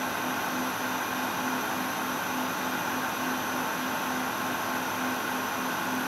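Industrial factory machine running continuously: a dense mechanical hiss and hum with a few steady whining tones, and a low hum that pulses evenly about twice a second.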